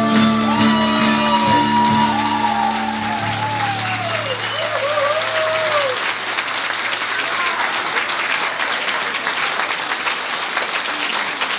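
Electric violin playing a closing phrase of sliding notes over a held low chord from the guitars as a folk song ends. The chord dies away about three seconds in, and audience applause takes over from about four seconds in.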